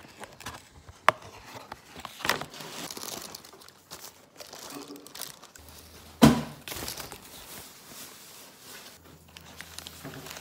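Paper takeaway food packaging crinkling and rustling as a breakfast box is opened and wrappers are handled, with two sharp knocks, the louder one about six seconds in.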